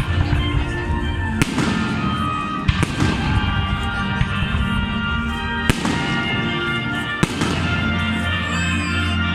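Fireworks bursting, with four sharp bangs spread through and frequent smaller crackles between them, over music playing.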